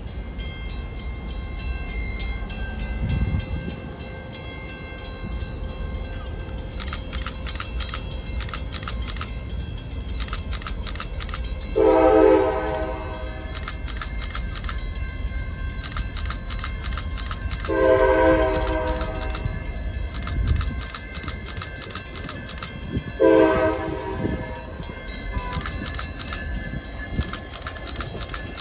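Locomotive air horn sounding the grade-crossing signal: two long blasts and a short one, as a train approaches a crossing. A crossing bell rings steadily under it from about a quarter of the way in.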